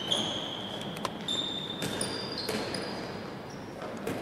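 Handballs bouncing on a wooden sports-hall floor, a few separate thuds, with sneakers squeaking in short high squeals as players run and cut, echoing in the large hall.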